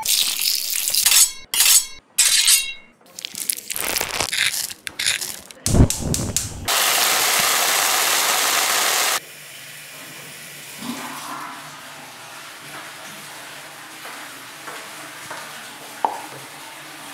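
A knife cutting and knocking on a board, with clinks and clatter of kitchen utensils, then steaks sizzling loudly in a hot cast-iron pan for a couple of seconds. The sizzle cuts off suddenly, leaving a quiet room background with a faint low hum.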